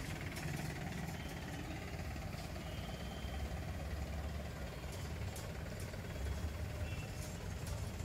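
Tow truck's engine running at low revs as it hauls a hooked-up car, a steady low rumble.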